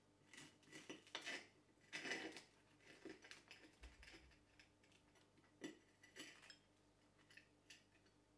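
Kitchen utensils and dishes being handled: a run of soft clinks and scrapes, the fullest about one and two seconds in, followed by a few lighter taps.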